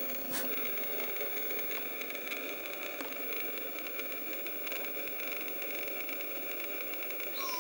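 Steady background hiss with a faint, steady high tone, and a single click about half a second in. Near the end a short call begins that slides down in pitch.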